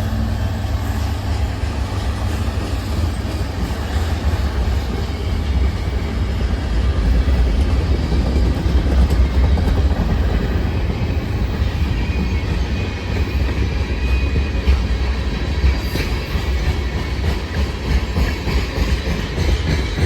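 Freight cars of a CN freight train rolling past, a steady low rumble with the irregular clatter of steel wheels over rail joints.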